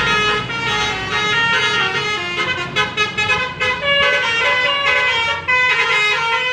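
Bus telolet basuri horn playing a rapid multi-note tune, its pitched notes stepping up and down, over a low bus engine rumble that fades in the first second.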